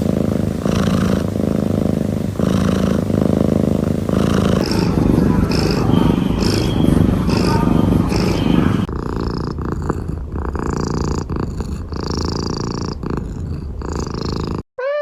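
Domestic cat purring loudly and close, in three successive takes, with a short cat meow right at the end.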